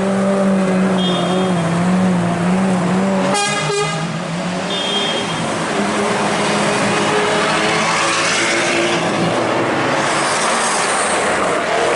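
City street traffic: a vehicle engine drones steadily, with a brief rattle about three and a half seconds in and the rushing noise of a passing car swelling near the end.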